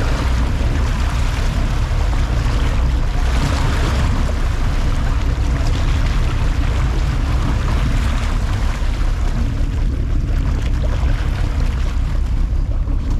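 Sport-fishing boat's engine running steadily under way, a constant low rumble mixed with the rush of wind and water.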